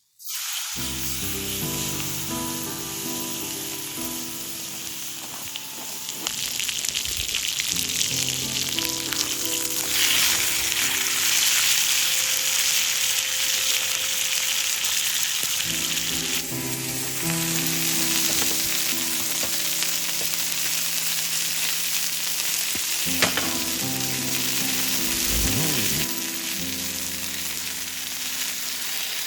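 Food sizzling and frying in a hot pan, a steady crackling hiss, over soft background music.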